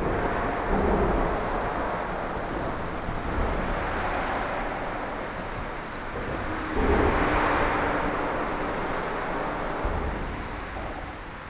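Wind buffeting the microphone in a steady rushing rumble, which swells louder about seven seconds in.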